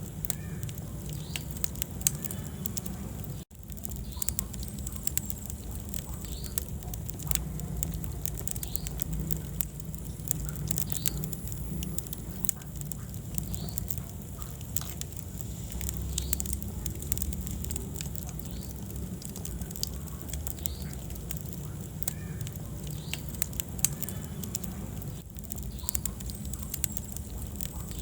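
Wood fire crackling: a steady low rumble of burning, dotted throughout with sharp pops and snaps. The sound briefly cuts out a little after three seconds in.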